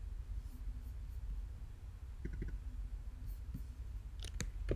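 Computer mouse clicking: a quick double click about halfway through and a cluster of clicks near the end, the last one the loudest. A steady low hum runs underneath.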